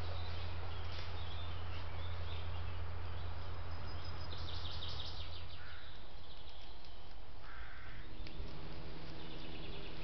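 Trail camera recording of a woodland: a steady hiss and low electrical hum from the camera's microphone, with birds calling. A quick run of high chirps comes about four and a half seconds in, and short calls follow. The hum changes abruptly where the clips cut.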